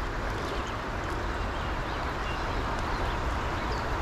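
Steady rush of water in a fast, rocky stream, unchanging in level, with faint chirps over it.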